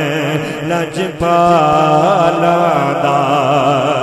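A man singing a Punjabi naat into a microphone, holding long ornamented notes that waver up and down, with a short break for breath about a second in.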